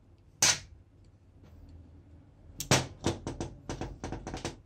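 Bearing puller freeing a pressed-on ball bearing and pinion gear from a Makita groove cutter's armature shaft. There is one sharp crack about half a second in as the part breaks free, then from about halfway a quick run of about ten metal clicks and clinks as the puller and loosened parts are handled.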